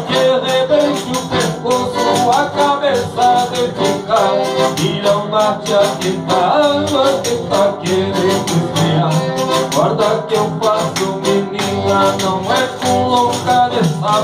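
Button accordion, acoustic guitar and pandeiro playing a lively folk tune together, the accordion carrying the melody over strummed guitar while the pandeiro's jingles keep a steady beat.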